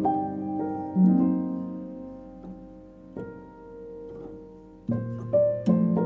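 Instrumental background music led by piano: notes struck and left to ring and fade, a lull in the middle, then a new phrase starting near the end.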